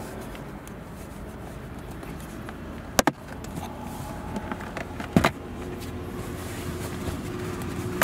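Plastic retaining clips on a Toyota RAV4 center console's side trim panel snapping loose as the panel is pried off with a plastic trim removal tool: two sharp snaps about two seconds apart, with lighter ticks between them. A steady hum comes in just after the second snap.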